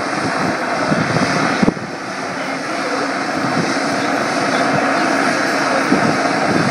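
Westland Sea King twin-turbine helicopter hovering, its rotor and turbine noise steady and loud, with a short dip just before two seconds in.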